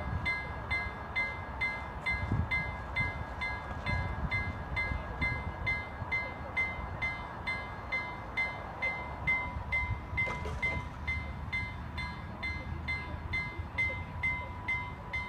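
Level-crossing warning bell ringing in a steady, even rhythm of about two and a half strokes a second, signalling that a train is approaching and the barriers are coming down.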